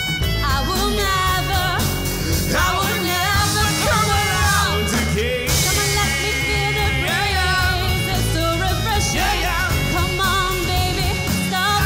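Live rock band playing: drum kit, electric bass, acoustic guitar and violin, with a woman's voice singing over the band.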